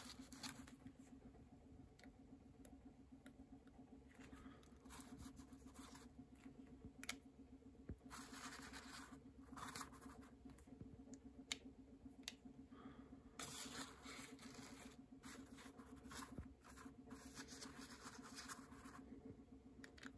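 Near silence: faint, intermittent scratching and rustling of hands handling things on a kitchen counter, over a steady low hum.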